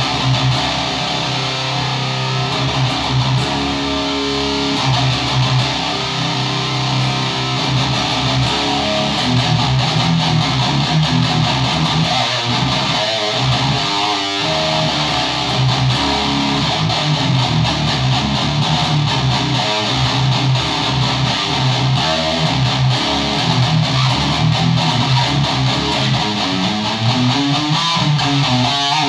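A 1991 ESP M-II Custom NTB electric guitar played through a Randall RG3003H 300-watt solid-state head into a Mesa Rectifier 4x12 cabinet: sustained low chords at first, then riffs. The tone is driven by an Ares Effects Savage Drive pedal, with the amp's noise gate switched off.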